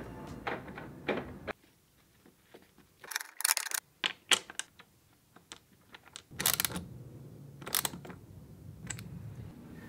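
Metal hardware clinking and clicking as bolts, washers and nuts are fitted by hand to an outboard motor's mounting bracket: a handful of sharp separate clicks.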